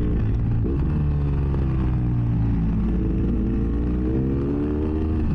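2006 BMW F800S's Rotax parallel-twin engine through a GPR Furore exhaust with the dB-killer removed, heard from inside the rider's helmet while riding. Its pitch changes about a second in, then the revs climb over the last couple of seconds.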